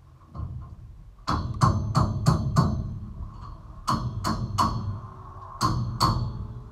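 Trowel tapping a brick down into its mortar bed on top of a brick wall: about ten sharp knocks with a short ring, in three quick groups of five, three and two.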